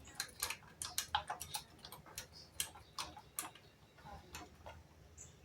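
Faint, irregular clicks and taps of small parts being handled and fitted by hand on a push mower.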